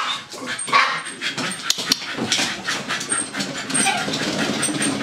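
A dog running on a dog treadmill: an irregular clatter of paws and knocks from the running deck, with the dog panting. A steady low rumble sets in about halfway through.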